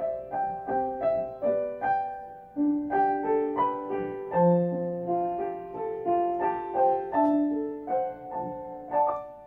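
Piano music: a gentle melody of separate struck notes, about two or three a second, each ringing and dying away, with the last notes fading out at the very end.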